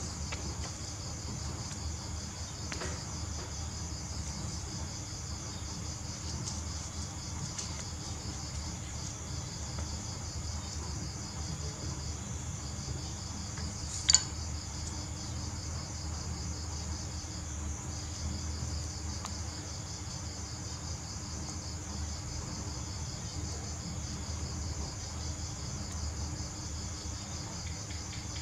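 Steady, high-pitched trilling of insects, pulsing continuously with a few brief pauses, over a low steady hum. A single sharp click about halfway through.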